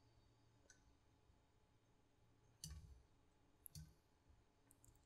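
Near silence broken by a few faint computer mouse clicks, one alone, then a short cluster, then a close pair.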